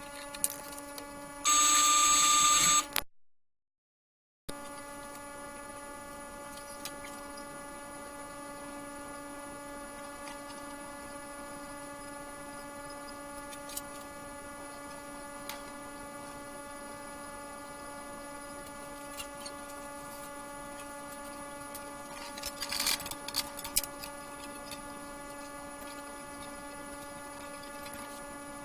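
A steady hum made of several steady tones, with scattered faint ticks and a short cluster of clicks about two-thirds of the way through. Near the start there is a loud, noisy burst that cuts off abruptly into a second or so of dead silence.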